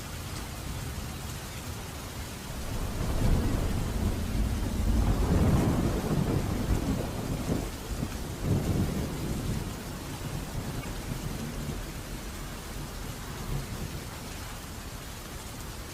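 Steady rain with a long roll of thunder that swells about two seconds in, rumbles low for several seconds with a sharper crack partway through, and fades back into the rain.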